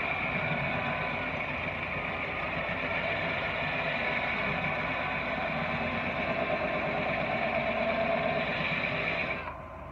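Cordless drill running steadily with a water-wetted carbide glass bit grinding a hole through a glass whiskey bottle; the drill stops near the end.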